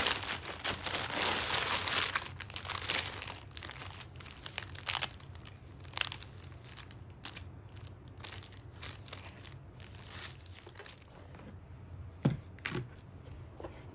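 Clear plastic packaging crinkling and rustling as clothes are unwrapped, dense for the first couple of seconds. Then come softer, scattered rustles of fabric and tissue paper with a few light clicks. Two soft knocks follow near the end, as the cardboard shoe box is handled.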